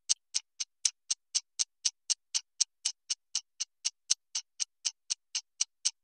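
Clock ticking sound effect: sharp, evenly spaced ticks, about four a second.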